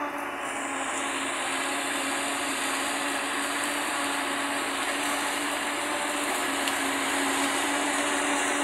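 Tractor-drawn forage harvester, driven by an LS Plus 90 tractor, chopping standing corn for silage and blowing it out its spout: a steady, dense whirring with a constant hum, the tractor engines under load beneath it. It grows gradually louder as the machines come closer.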